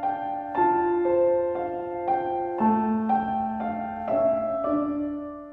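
Slow background music of sustained, piano-like notes, a new note about every half second, fading out at the end.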